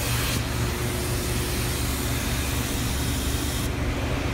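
Steady hum and hiss of woodworking machinery running in a workshop, with fixed low tones; the high hiss drops off abruptly about half a second in.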